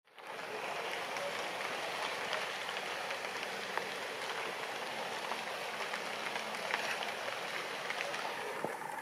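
Steady rain falling: an even hiss with scattered light ticks of single drops.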